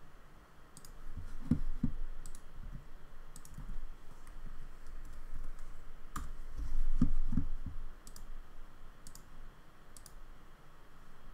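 Computer mouse clicking while working through software menus: sharp single clicks spaced unevenly, about one a second. A few soft low thumps come in two small clusters, about a second and a half in and again around seven seconds in.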